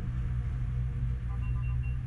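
A steady low engine rumble, with three quick short beeps about one and a half seconds in.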